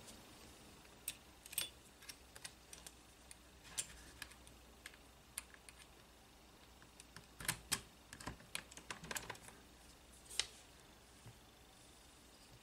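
Faint, scattered small clicks and taps of a jigsaw blade being fitted into the blade holder of a Power Action CJS-20 jigsaw, with a quick run of clicks past the middle and one sharper click near the end.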